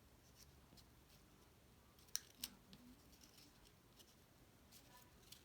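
Quiet handling of cut cardstock pieces: faint scattered ticks, with two sharp clicks close together about two seconds in.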